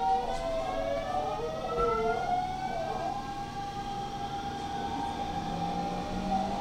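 Hanshin 5500-series electric train accelerating: its inverter and traction motors whine in several rising tones that level off into a steadier tone about three seconds in.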